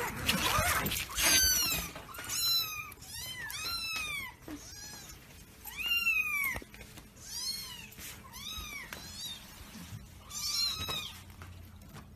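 Young kittens mewing over and over, short high thin calls that each rise and fall in pitch, one or two a second.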